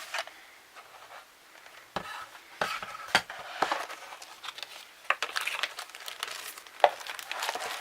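Cardboard box and plastic packaging being handled and unpacked: rustling and crinkling with several sharp knocks, the loudest one near the end.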